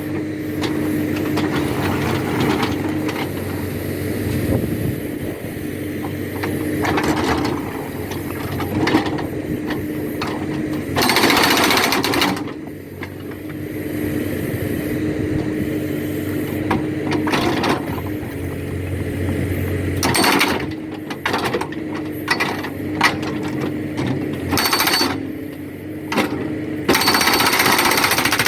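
Backhoe-mounted hydraulic rock breaker hammering in repeated bursts over the backhoe's steadily running engine.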